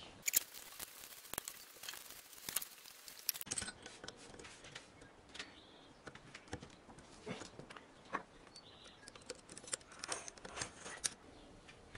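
Scattered light metallic clicks and taps from a hand lever valve spring compressor on a Renault Logan 1.4 cylinder head, as valve springs are pressed down and the valve keepers taken out.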